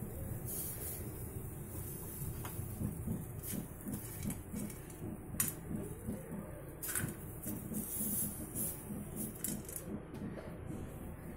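Handling noise as the recording phone is moved about: a few light, scattered clicks and knocks over a low steady hum.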